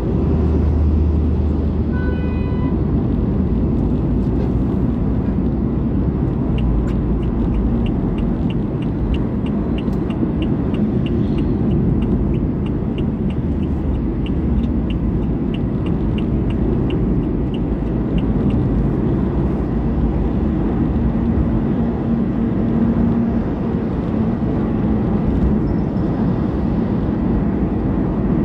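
Steady low rumble of engine and tyre noise inside a moving car's cabin. A brief pitched beep sounds about two seconds in, and a fast regular ticking, about three ticks a second, runs from roughly six to eighteen seconds in.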